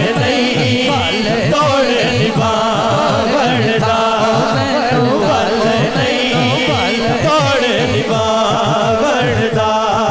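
A man singing a Punjabi naat into a microphone in long, ornamented sung lines, over a steady low beat that swoops down and up in pitch.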